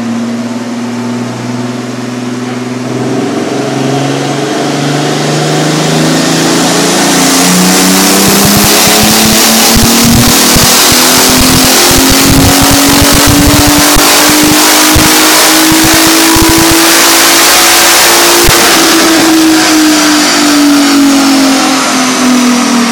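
Big-turbo VR6 engine in a Mk4 Volkswagen Jetta making a full-throttle dyno pull: revs climb steadily and loudly for about eighteen seconds with a strong rushing hiss over the engine note, then fall away as the throttle is lifted and the rollers coast down.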